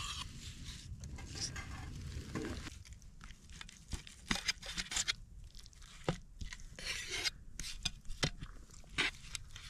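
A knife slicing cooked ribeye steak, then a knife and fork scraping and clicking against a plate in scattered short strokes as the steak is cut.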